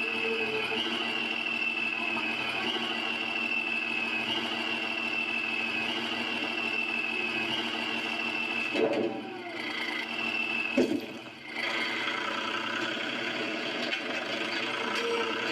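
Small electric motor and gears of a toy RC construction vehicle whirring steadily, with a high whine that slowly sinks in pitch and jumps back up every second or two. Two brief knocks break it about nine and eleven seconds in.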